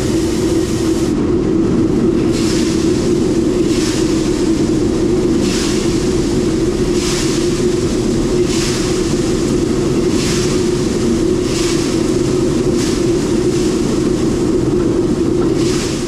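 Shelled corn pouring from a hopper-bottom grain trailer's open gate onto a grated receiving pit, over a steady machine hum. A hissing surge of grain comes about every second and a half.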